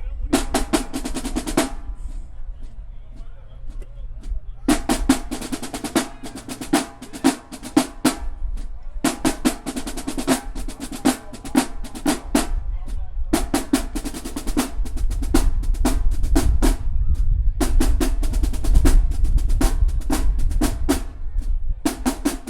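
Marching band drumline playing a cadence: phrases of rapid snare and tenor drum strokes with bass drum, broken by short pauses about every three seconds.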